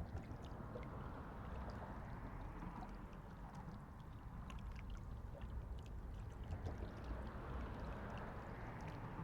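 Faint steady lake-water noise with a low rumble underneath and scattered tiny ticks.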